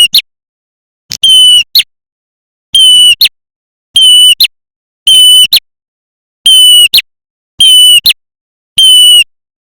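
Looped lure recording of a prenjak merah (small warbler) call: a short call with a steady high whistled note and a quick sharp note at its end, repeated about every 1.2 seconds, eight times.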